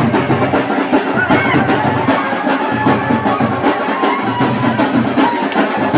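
Loud music with drums and a wavering melody line, playing steadily throughout.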